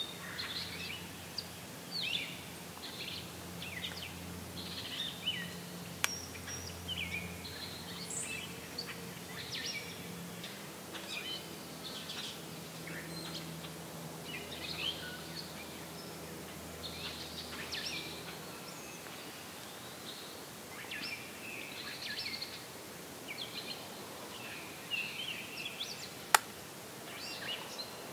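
Many songbirds chirping and calling, red-winged blackbirds among them. A low steady hum runs underneath for the first two-thirds and then fades out, and there is one sharp click near the end.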